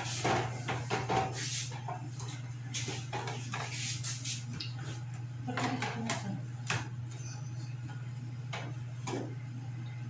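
Food containers being taken out of an open refrigerator: scattered knocks and clatters, busiest in the first few seconds and again around six and nine seconds in, over a steady low hum.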